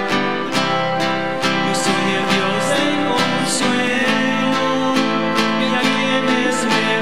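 Acoustic guitar strummed in a steady rhythm, about two strums a second, playing a hymn.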